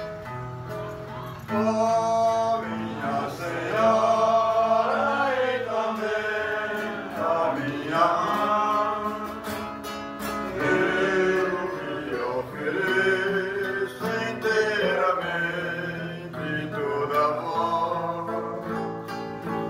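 Voices singing a hymn to guitar accompaniment. After a short guitar opening, the singing comes in about a second and a half in and carries on.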